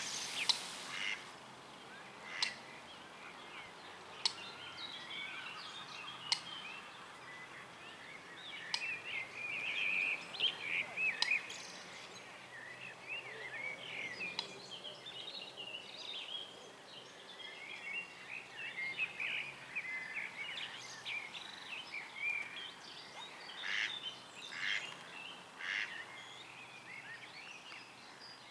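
Birds chirping and twittering in a busy, continuous chatter of short notes. A few sharp clicks stand out, about two, four and six seconds in.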